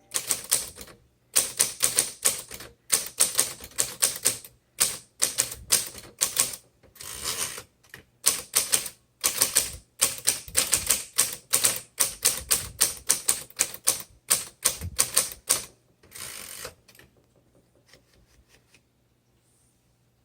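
Manual typewriter being typed in quick runs of keystrokes with short pauses between them; the typing stops near the end, leaving only a few faint clicks.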